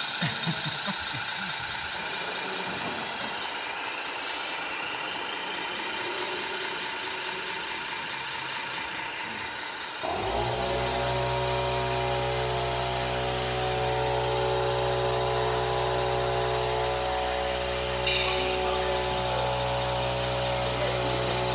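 Radio-controlled model truck and low-loader: about halfway through, a steady mechanical drone starts abruptly and runs on unchanged while the trailer's rear loading ramps are lowered.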